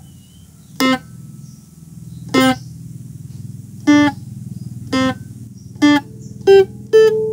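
A homemade box-bodied phin (Isan plucked lute) playing single plucked melody notes over a steady droning string. The notes come about a second apart and quicken near the end. Each note is cut short, the fretting finger lifted straight after the pluck: the 'short note' style of playing.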